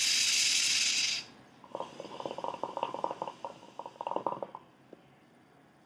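Hookah being drawn on through its hose: a short airy hiss, then the water in the base bubbling in a rapid, irregular burble for about three seconds.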